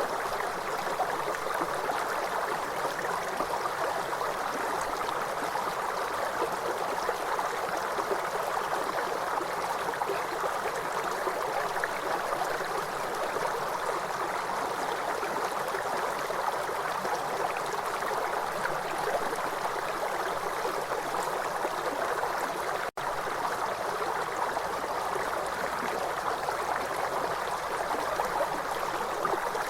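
River water rushing steadily over stones, an even unbroken flow. It drops out for a split second about two-thirds of the way through.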